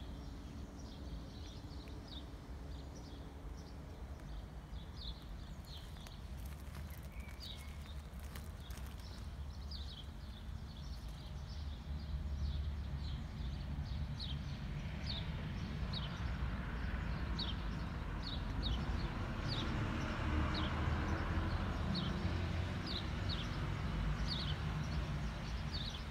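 Outdoor ambience: a small bird chirps over and over, short high down-slurred chirps about once a second, over a low steady rumble that grows louder about halfway through.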